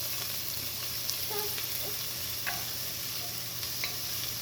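Finely chopped garlic sautéing in hot olive oil in a pan: a steady sizzle with a few small crackles.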